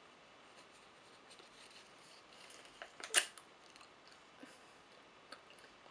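Faint rustling of a sheet of paper spread with strawberry jam, with one short sharp rip about three seconds in as a piece of the paper is bitten off.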